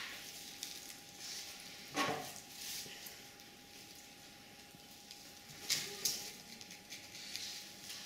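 Dry, papery bulb skins rustling and a small knife scraping as a bulb is cleaned by hand, with a few short soft knocks. A faint steady tone sits underneath.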